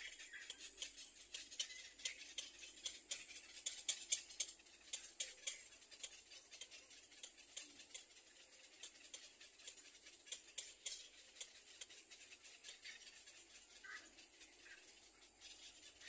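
Rapid, dry clicking and ticking at a little egret's nest with chicks, dense for the first several seconds and then sparser, with a few short chirps near the end. A faint steady high whine runs underneath.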